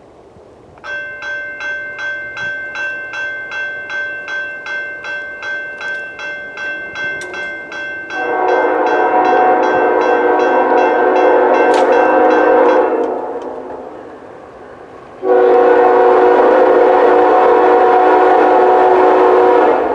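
A bell rings steadily, about two and a half strokes a second, for the first several seconds. Then a Norfolk Southern freight locomotive's air horn sounds two long blasts in a chord: the first starts about eight seconds in and lasts about five seconds, and the second starts suddenly after a short gap.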